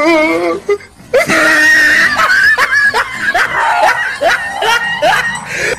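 Loud screaming mixed with laughter: after a short wavering cry, a rapid run of short falling shrieks from about a second in.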